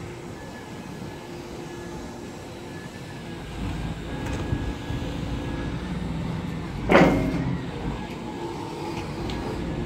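Volvo EW205D wheeled excavator's engine and hydraulics working as its grapple is swung and rotated, getting louder under load about three and a half seconds in. A single sharp, loud clunk comes about seven seconds in.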